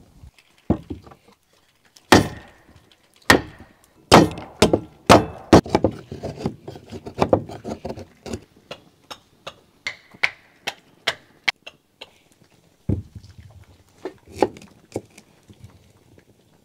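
A long knife chopping into and splitting a stick of dry kindling on a wooden block: a run of sharp wooden knocks and cracks, close together over the first half, then sparser single strikes.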